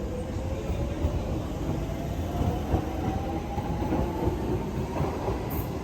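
Train running with a steady rumble while a motor whine climbs slowly in pitch as it picks up speed.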